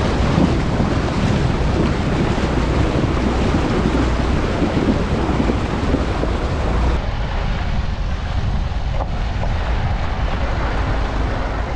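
Wind buffeting the microphone over a steady, loud rush of noise; about seven seconds in the sound changes abruptly, losing much of its hiss.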